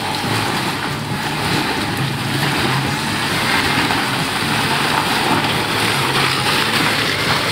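Toyota Land Cruiser 4x4 running steadily as it crawls along a dirt trail: a continuous rushing noise with a low hum beneath it.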